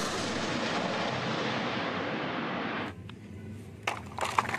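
Truck-mounted multiple rocket launcher firing a salvo: a continuous rushing launch noise that slowly fades and cuts off suddenly about three seconds in. A few light plastic clicks of a toy rocket truck being handled follow near the end.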